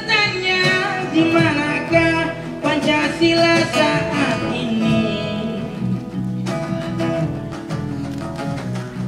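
Live acoustic band music: a singer's melodic vocal line over strummed and plucked acoustic guitars, with a brief break in the voice about two-thirds of the way through.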